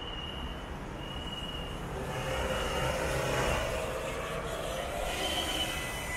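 Electric metro train at a station platform: a short high beep repeats about once a second, then the rumble of the train swells about two seconds in and eases off. A steady high whine starts near the end.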